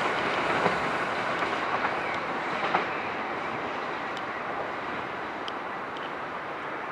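ICE high-speed train rolling away on the rails, a steady rumble of wheels on track that fades gradually, with a few sharp clicks in the first three seconds.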